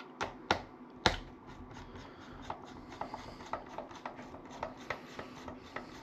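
Computer parts being handled by hand: a few sharp plastic-and-metal clicks in the first second, then light irregular ticking and rubbing.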